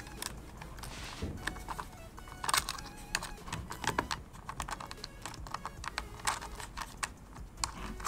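Irregular light clicks and taps of hands handling the switch box and routing its ground cable underneath it.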